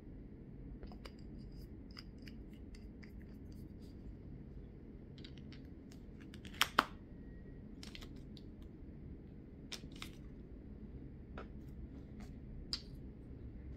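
Scattered light clicks and scrapes of nail-stamping tools: a polish bottle handled and polish worked over a metal stamping plate. Two sharp clicks come close together about halfway through, and a single one near the end.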